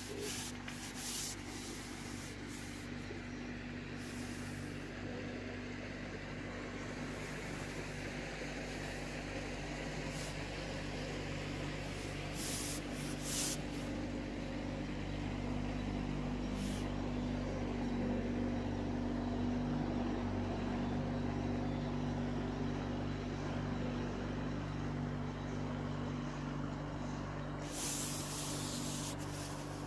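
A passing boat's engine running with a steady low drone, growing louder toward the middle and easing off near the end. A few short rustles or clicks are heard over it.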